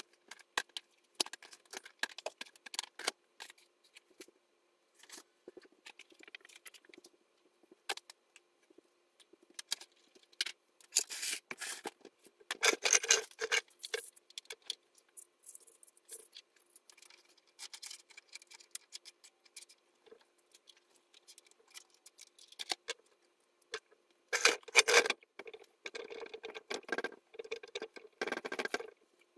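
Clicks, clatter and rustling of items being handled and put away while tidying a sewing room, with louder, longer rustling stretches about a third of the way in and near the end.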